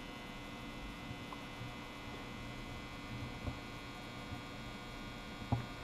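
Steady electrical mains hum, with a couple of faint short clicks, one near the middle and one near the end.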